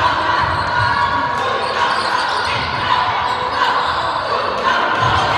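Basketball game on a hardwood gym court: the ball dribbling and players' shoes on the floor, with spectators' voices in the hall.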